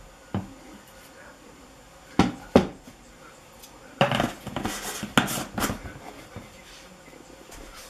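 Plastic screw lid of a large whey protein tub being put back on: a few sharp knocks, then about four seconds in a stretch of scraping and clicking as it is twisted shut on its threads.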